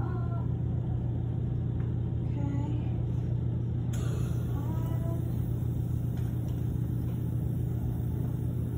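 A steady low mechanical hum of running equipment, unchanging throughout, with faint voices in the background.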